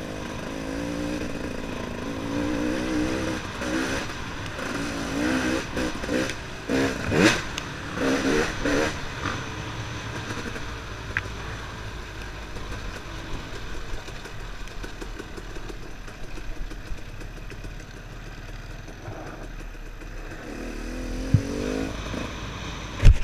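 Enduro motorcycle engine revving up and down as the bike rides a rough track, its pitch rising and falling, with a few sharp clattering knocks, then settling into quieter steady running after about ten seconds.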